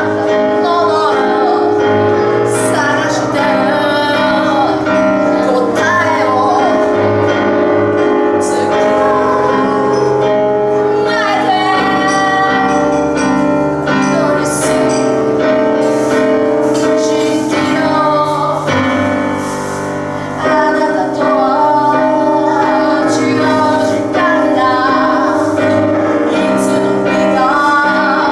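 A woman singing while accompanying herself on a grand piano.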